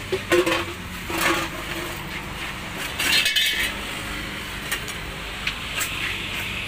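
A few light clinks and knocks of food-cart utensils and containers being handled during packing up, with a short rustling burst about three seconds in.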